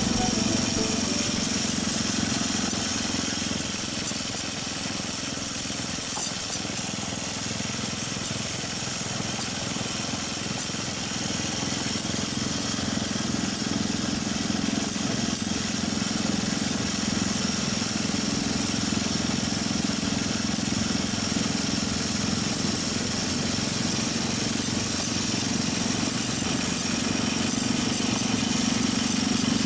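Small engine of a motorized rail bike running steadily as it rolls along the track, under a steady hiss.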